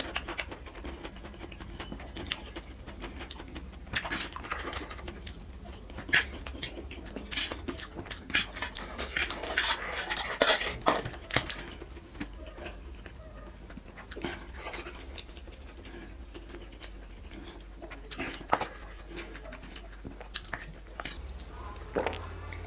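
Close-up eating sounds: a steel fork clinking and scraping on a stainless steel plate, with chewing and other mouth sounds from someone eating spicy black bean noodles and boiled eggs. Irregular clinks come in clusters, busiest about halfway through.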